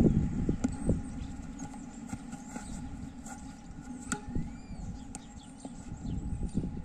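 A single sharp pock of a tennis racket striking a tennis ball about four seconds in, over a low steady rumble of wind on the microphone.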